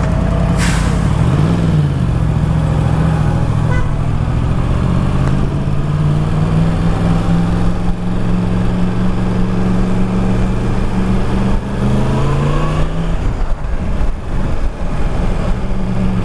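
Yamaha MT-10's crossplane inline-four engine through an Akrapovic exhaust, pulling away and running at low road speed. It revs up briefly about a second in, holds a steady note, then rises in pitch again near the end and drops back.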